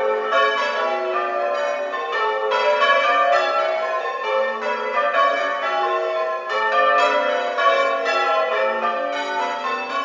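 Real recording of Marsham church's tower bells ringing changes: bells struck one after another in a steady, rapid, unbroken sequence, each stroke ringing on into the next.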